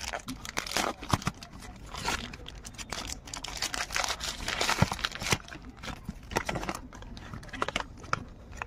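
Plastic packaging crinkling and rustling as an accessory is handled and unwrapped, a steady run of irregular crackles that dies away near the end.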